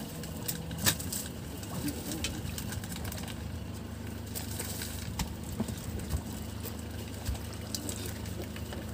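Boat engine running steadily with a low hum, with scattered light clicks and knocks over it and a sharper knock about a second in.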